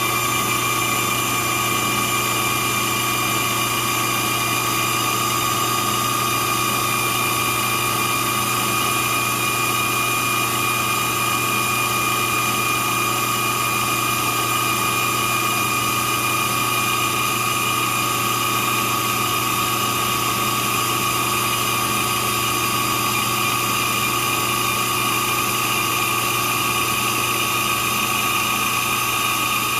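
Drill press running steadily while its chuck is ground true to cure runout: an even motor hum with a high, unchanging whine over a grinding hiss.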